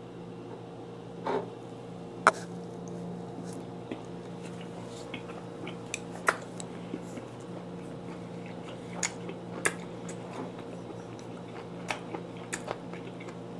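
A person chewing a mouthful of vinegar-cured mackerel sashimi close to the microphone: scattered soft wet mouth smacks and clicks.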